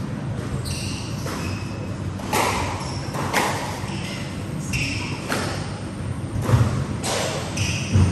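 Squash rally: the ball is struck by rackets and smacks off the walls in a string of about a dozen sharp, echoing hits, with sneakers squeaking briefly on the wooden court floor between them.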